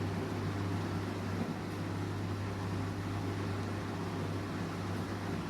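Voltas 14 kg front-load washing machine running just after being switched on, a steady low hum.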